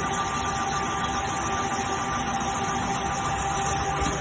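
CNC lathe running with its spindle turning and coolant spraying onto the workpiece: a steady machine hum with a constant whine and a noisy hiss.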